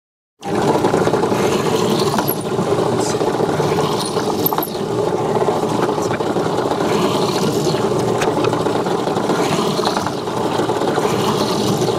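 Benchtop drill press running steadily, drilling into a small wooden piece held on its table. It starts suddenly about half a second in.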